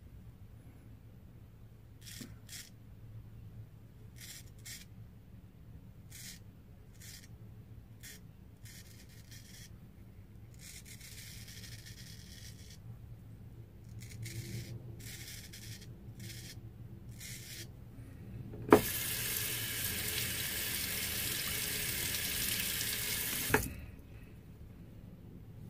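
Art of Shaving straight razor scraping through lathered stubble in a series of short strokes. About three-quarters of the way in, a tap opens with a click and runs steadily for about five seconds before it is shut off with another click; the running tap is the loudest sound.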